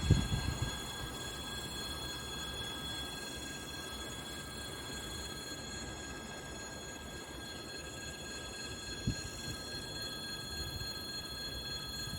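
Freight train wagons rolling past on the rails with a steady low rumble. There are a few wheel knocks in the first second and one sharp knock about nine seconds in.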